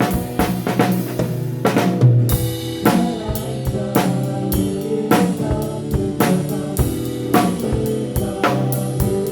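Live worship band playing an instrumental passage, led by a drum kit with steady snare and kick-drum strokes under held chords from the other instruments.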